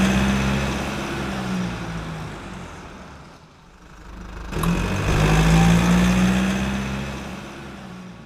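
Car engine sound effect: an engine revs loudly and fades away, then, after a sharp click about four and a half seconds in, revs up again and fades out.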